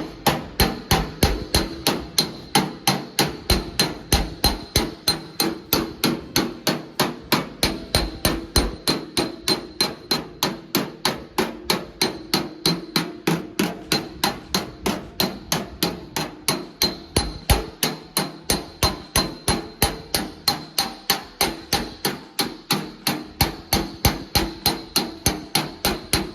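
Body hammer striking the steel front fender of a 1955 Chevy over a dolly, about three blows a second in a steady rhythm, the sheet metal ringing at each blow. The work is hammer-on-dolly, knocking down a high crest in the panel.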